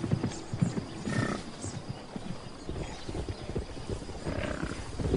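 A herd of large hoofed animals on the move: many low hoof thuds, with a short call about a second in and another near the end.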